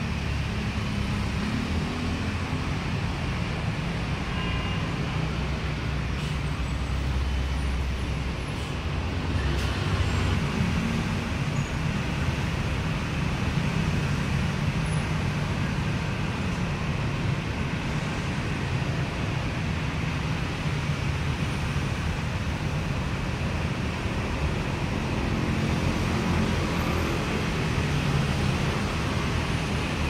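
Steady low background rumble of road traffic.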